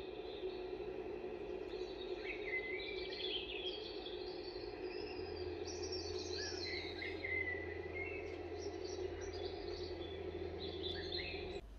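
Birds chirping and twittering in a nature ambience recording over a steady low hum. The sound cuts off abruptly near the end.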